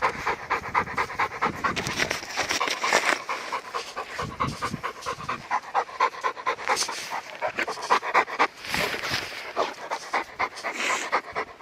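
A Labrador retriever panting hard in a fast, steady rhythm of short breaths.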